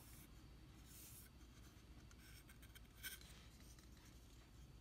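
Near silence with a few faint, short scratchy rustles, the slightly loudest about three seconds in: hands turning and handling a folding knife.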